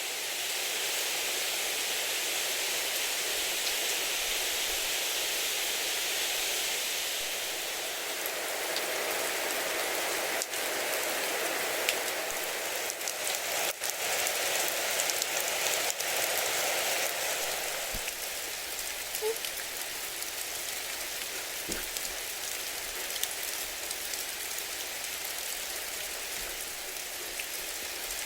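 Steady rain falling, a little quieter after about seventeen seconds.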